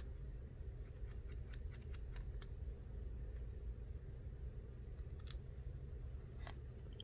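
Faint, scattered clicks and light scrapes of small repair tools on an iPhone 7's internal metal parts as tiny bracket screws are fitted, over a steady low hum.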